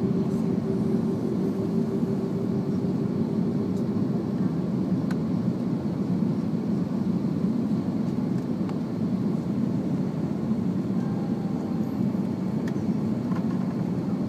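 Steady cabin noise inside a jet airliner descending to land: an even low rush of engines and airflow. A thin steady hum under it stops about five seconds in.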